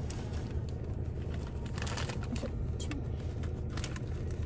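Crinkling and rustling of a foil Cheetos snack bag as hands dig in and pull out chips: irregular short crackles over a steady low hum.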